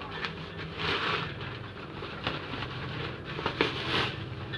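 Bubble-wrap packaging rustling and crinkling as it is handled, with scattered small clicks; louder swells about a second in and again near the end.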